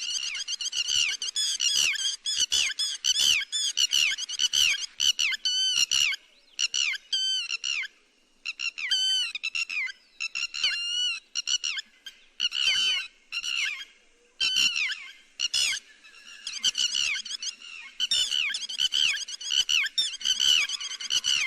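Lapwing ('te te mỏ vàng') calling: rapid runs of sharp, high, downward-sliding notes, broken by short pauses, as used for a bird-netting lure call.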